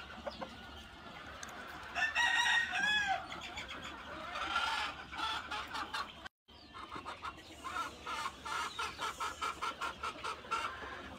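Domestic laying hens clucking and calling: a drawn-out call about two seconds in, then a run of quick clucks, about four a second, near the end.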